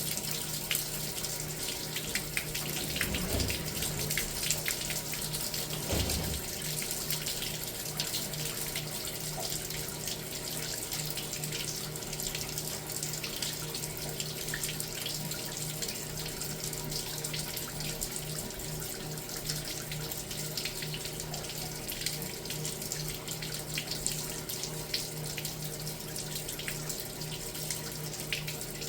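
Water running steadily, with a low hum underneath and two dull knocks a few seconds in.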